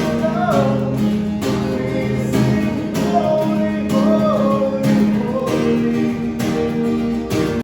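Background music: a song with guitar and a singing voice over a steady beat, which cuts off suddenly at the end.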